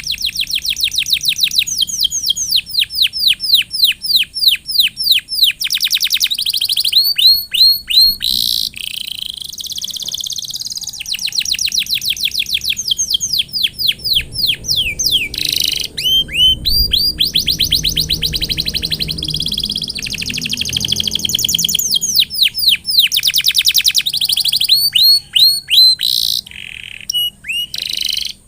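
Domestic canary singing a loud, continuous song of rapid trills, each a fast string of repeated rising chirps, the trills changing speed and pitch one after another with brief breaks.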